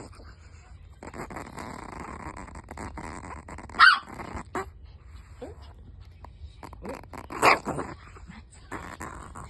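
Angry chihuahua growling, with two short, loud barks about four seconds in and again near seven and a half seconds.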